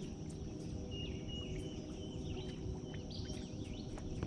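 River-side outdoor ambience: birds chirping with short rising and falling calls, over a steady high insect drone and a constant low rumble.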